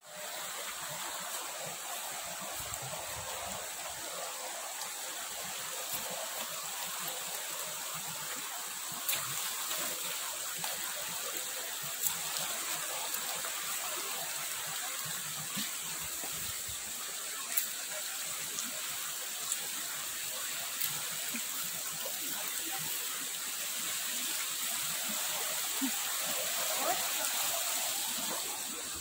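Steady rushing of a small, fast-flowing stream, with a constant high-pitched tone above it and a few faint clicks.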